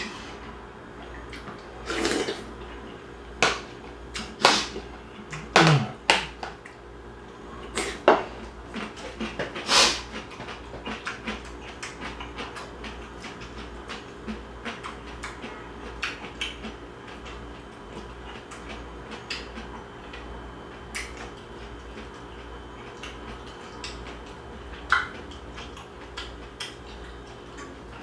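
A metal spoon clinking and scraping against a ceramic soup bowl while eating beef bone soup, with a run of sharp clinks over the first ten seconds that thins out to occasional small clicks and chewing sounds.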